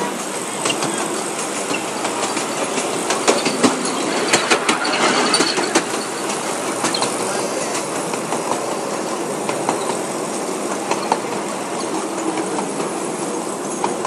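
Miniature ride-on railway train running along its track, heard from one of its open carriages: a steady rolling noise with frequent irregular clicks and rattles of the wheels and carriages over the rail joints.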